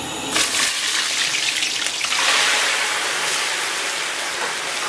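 Scallion, ginger, onion and coriander stems dropped into hot soybean oil in a wok, frying with a loud sizzle. The sizzle starts suddenly just after the start and swells about two seconds in.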